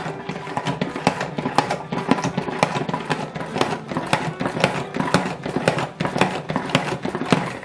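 Pump-action salad spinner being pressed repeatedly: a sharp plastic clack with each push of the plunger, about two a second, as the basket spins the water off blanched greens.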